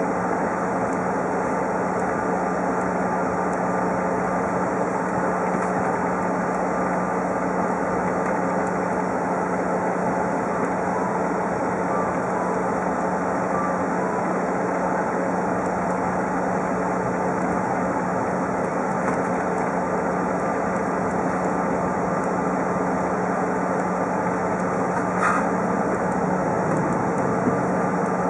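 Steady cabin noise of a Bombardier CRJ-700 taxiing, its two tail-mounted General Electric CF34 turbofans at idle, with a steady low hum. A brief click near the end.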